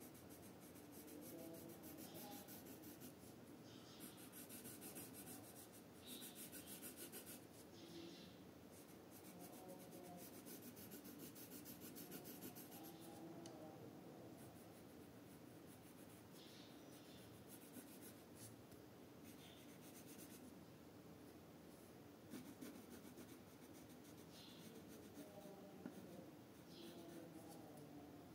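Red coloured pencil shading on paper: quiet, rapid back-and-forth scratching strokes that come in spells of a few seconds with short pauses between.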